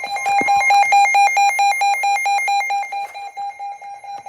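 Electronic weather-alert alarm: a loud beeping tone about six or seven beeps a second, with a warbling higher tone over it that stops about three seconds in, leaving the beeping quieter. It marks the start of a new severe thunderstorm warning.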